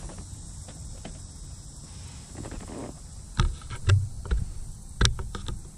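A few sharp clicks and knocks, with one dull thump among them, in the second half over a low steady hum: handling noise, like the camera or objects being moved and bumped.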